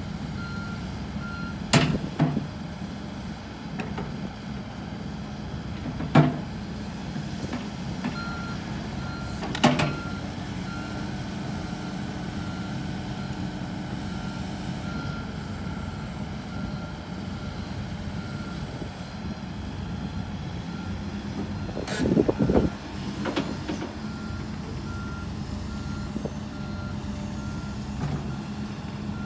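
Kobelco SK140SRLC-3 excavator's Mitsubishi D04EG diesel engine running steadily as the arm and bucket move, with a warning alarm beeping at a quick steady rate, fading after about fifteen seconds. Sharp knocks from the machine stand out about two, six and ten seconds in, and again around twenty-two seconds.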